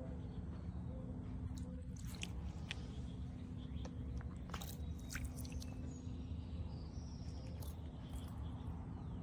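Small floating solar fountain pump spraying water into a bird bath, the droplets splashing and pattering irregularly over a steady low hum.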